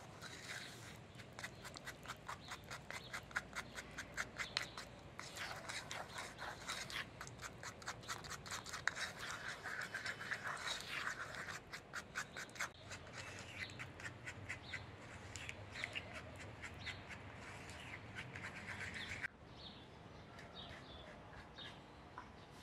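A small brush stirring and scraping a thick sauce in a wooden bowl: quick, rapid scratching strokes, several a second, that stop abruptly about 19 seconds in. Birds chirp faintly afterwards.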